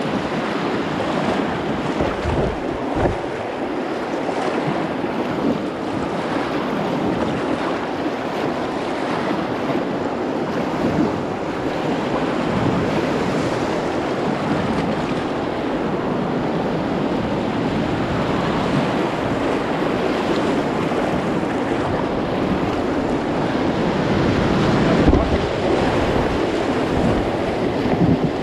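Whitewater rushing steadily in river rapids, heard from a kayak on the water, with wind gusting on the microphone now and then.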